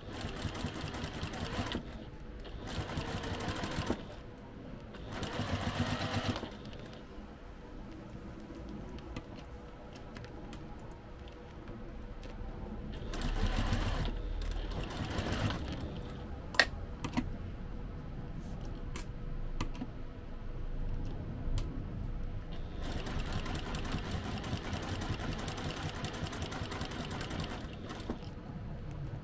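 Domestic sewing machine stitching through layered fabric in several short runs, stopping and starting with quieter pauses between runs. A single sharp click about sixteen seconds in.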